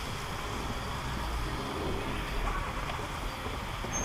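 Car cabin noise while driving slowly on a wet city street: a steady low engine rumble under an even hiss of tyres on wet asphalt.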